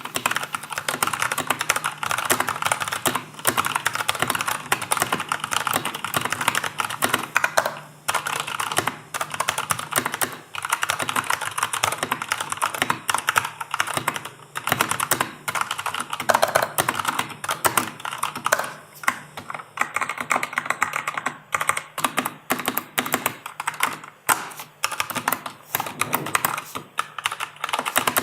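Fast typing on an Anne Pro 2 compact mechanical keyboard with Kailh Box Brown tactile switches: a dense, rapid run of key clacks with a few brief pauses.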